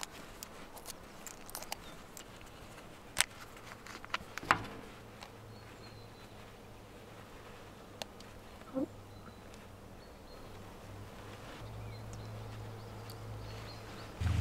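Quiet handling of a hard-boiled egg: a few small sharp clicks and taps of eggshell, a squeezed tube and a spoon, the loudest a few seconds in. Under them runs a faint low hum that grows louder near the end.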